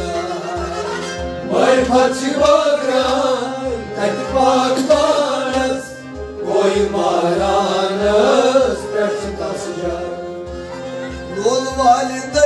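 Kashmiri Sufi devotional song: a man sings over harmonium and rabab, with a drum beating steadily about twice a second. The voice comes in about a second and a half in, pauses briefly twice, and returns near the end.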